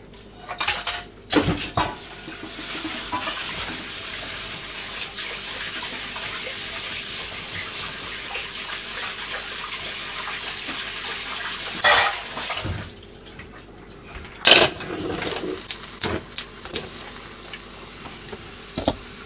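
Kitchen tap running into a sink for about ten seconds, then a clatter of pans and dishes and a few sharp knocks as a frying pan is set back on the gas hob.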